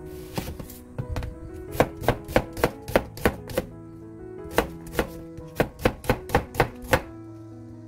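Chef's knife slicing an onion on a stainless steel surface: a run of sharp knocks, about three a second, with a pause of about a second near the middle.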